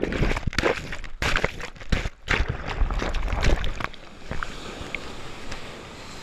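Water sloshing and splashing with wind buffeting the microphone: a run of irregular knocks and splashes for about four seconds, then a steadier rush of surf.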